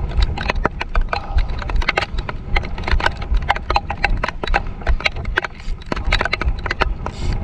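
Spinning fishing reel and rod clicking and rattling in quick, irregular ticks while a hooked fish shakes its head against the line. A steady low wind rumble lies underneath.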